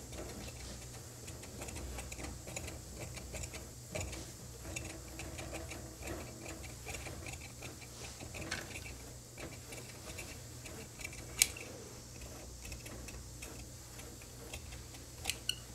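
Large tailor's shears cutting through coat fabric on a cutting table: a run of small, fairly regular snipping clicks as the blades close, with a sharper click about eleven seconds in.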